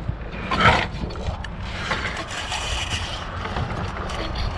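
Scraping and clunking as a telescoping wooden mast crutch is raised under a sailboat mast and its pole shifted for re-pinning, loudest just under a second in, with wind rumble on the microphone.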